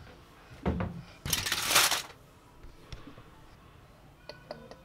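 Kitchen handling noises as a glass bowl of lettuce is dressed with olive oil: a dull knock, then a loud crinkly rustle lasting under a second, followed by a few light clicks and taps of glass.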